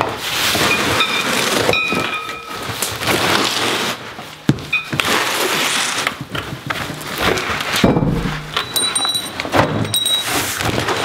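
A large cardboard shipping box being opened by hand: cardboard flaps scraping and rubbing, with rustling and a run of knocks and thunks, the loudest about eight seconds in, plus a few short squeaks.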